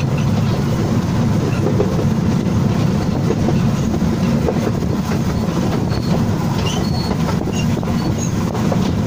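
Wulai trolley train running on its narrow-gauge track, heard from on board: a steady low rumble of wheels on the rails with scattered clicks. A few brief high wheel squeaks sound on the curve.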